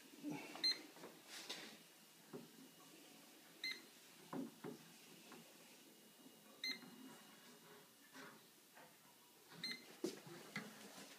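Testo 316-4 refrigerant leak detector giving a short, high beep about every three seconds, with faint knocks and handling noises in between.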